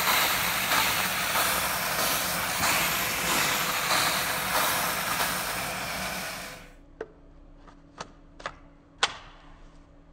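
Steam vacuum cleaner running with its extraction nozzle on fabric upholstery: a loud, steady hiss of steam and suction that stops abruptly about two-thirds of the way through. Then come a few sharp plastic clicks as nozzle attachments are handled and fitted.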